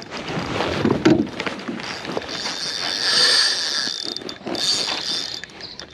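Fishing reel being cranked in a steady retrieve, a continuous mechanical whirring of the reel's gears.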